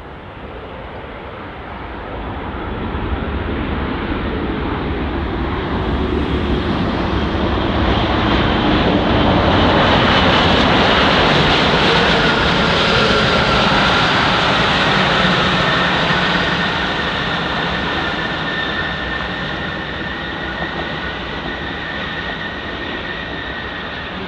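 Boeing 787-9's GEnx jet engines and rushing air as the airliner rolls out along the runway just after touchdown. The sound swells to a peak about halfway through, then fades slowly, with a steady high fan whine in the later part.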